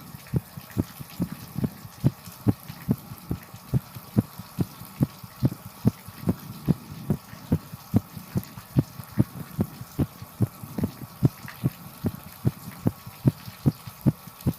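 Human heartbeat: a steady lub-dub of low thumps, a strong beat and a weaker one a little over once a second, over a steady hiss.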